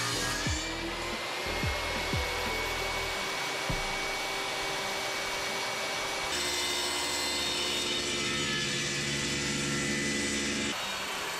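Table saw running and cutting through a large wood sheet.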